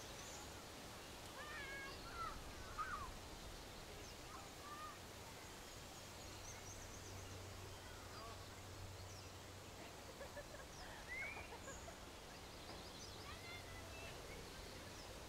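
Faint outdoor ambience with scattered bird chirps and short whistled calls. A few louder calls come about two to three seconds in and again near eleven seconds.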